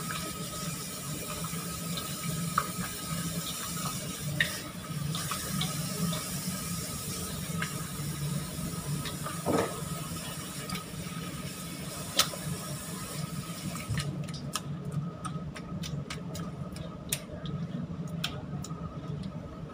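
Bare hands squishing and rubbing marinated beef short ribs in a stainless-steel bowl: wet squelching, over a steady low hum, with small clicks in the last few seconds.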